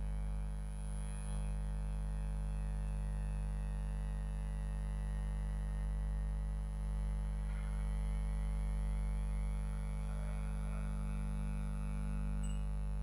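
Steady low electrical hum, a mains-type buzz with a stack of even overtones, holding level without a break.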